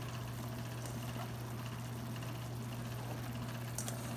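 Steady low hum with the even hiss of food cooking on the stove, and a brief light click near the end.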